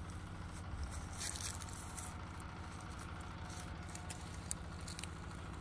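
A steady low engine rumble, like a motor idling, with a few short rustles and clicks over it.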